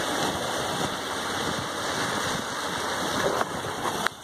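Steady rush of water along the hull of a sailboat under way, with wind buffeting the microphone. A few light knocks near the end.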